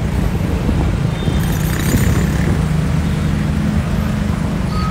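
Small box truck's engine running at low speed close by, a steady low hum over street traffic noise.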